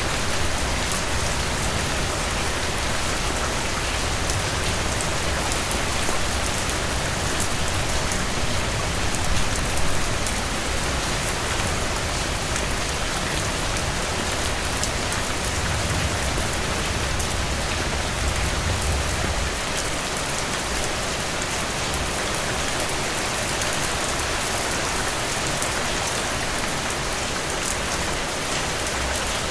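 Steady heavy rain falling on a surface, a dense, even hiss of drops. A low rumble sits under it and stops about two-thirds of the way through.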